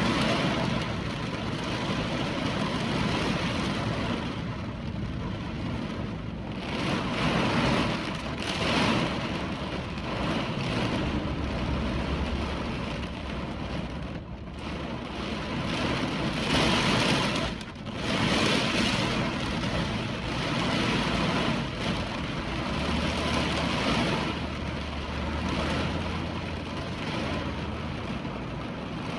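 Hurricane wind and rain: a steady rushing noise that swells and eases in gusts every few seconds.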